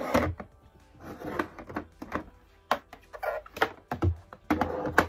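Plastic storage trays and baskets being moved around and set into an Ikea Alex drawer: a run of irregular plastic knocks, clacks and short scrapes against the drawer and each other.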